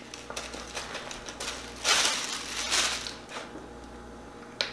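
Plastic zip-top freezer bag crinkling as its seal is pressed shut along the top, with small clicks throughout, two louder crinkling rushes about two and three seconds in, and a sharp click near the end. The bag is hard to close around partly frozen salmon.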